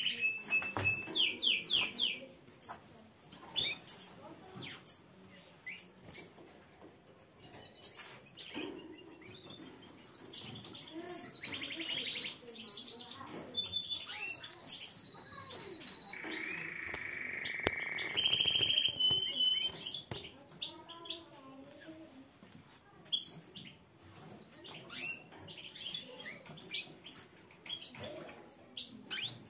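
Canaries singing: sharp chirps and whistled notes with several rapid trills and rolled passages, a fast trill in the first two seconds and long rolls about a third and three fifths of the way in.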